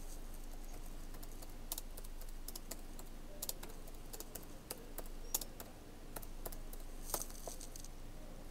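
Typing on a computer keyboard: a faint, irregular run of key clicks.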